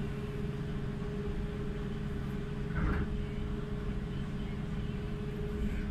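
Steady low drone of a car ferry's engines and onboard machinery under way, with a constant hum running through it. A brief short sound breaks in about halfway through.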